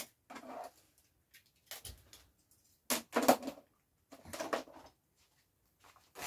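Handling noises: about five short rustles and knocks, spaced a second or so apart, as cables and packaging are picked up and set down on a table.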